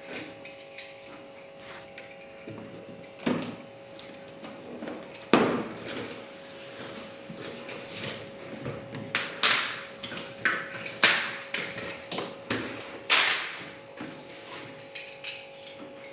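Scattered knocks, clicks and rustles of a flat-screen TV and its packaging being handled during unboxing, the loudest knock about five seconds in, over a faint steady hum.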